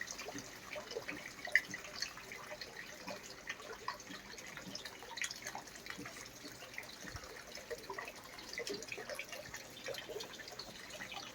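Rainwater dripping and trickling just after a heavy thunderstorm downpour has stopped: a faint, irregular patter of single drips and small plinks.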